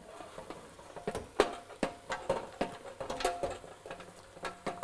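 Wooden spoon knocking and scraping pieces of meat out of a metal roasting pan into a stainless steel pot: an irregular string of clicks and light knocks, some with a brief metallic ring.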